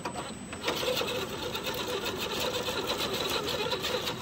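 Electric motor and geared drivetrain of an RC rock crawler whining steadily under load as it climbs over rocks, starting about a second in.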